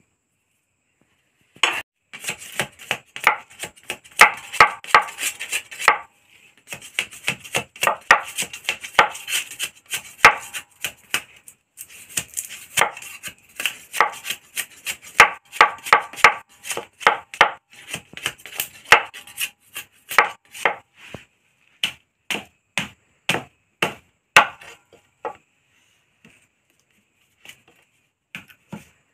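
Machete chopping into a fire-roasted bamboo tube to split it open: rapid runs of sharp wooden chops, several a second, thinning to single blows before stopping about 25 seconds in, with a few more strokes near the end.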